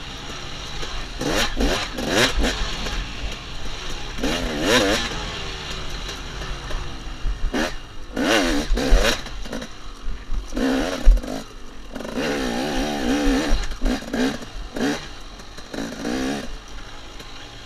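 KTM 250 XC two-stroke dirt bike engine revving up and down in repeated throttle bursts as it is ridden hard over rough ground, with sharp knocks between the revs and one loud knock about eleven seconds in.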